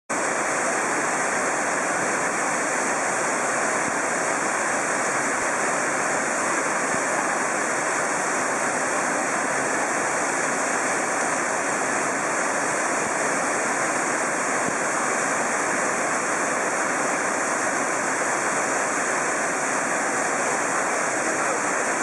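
Three-tiered waterfall pouring over rock into a pool: a steady, unbroken rush of falling water.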